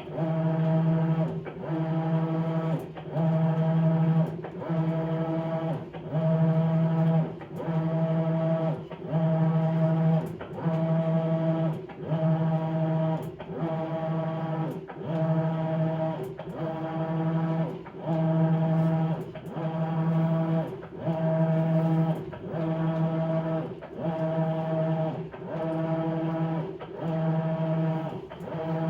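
Maytag Bravos XL top-load washer's drive motor humming in regular strokes, about one every second and a half with a short break between each, as the wash plate moves a load of bedding back and forth.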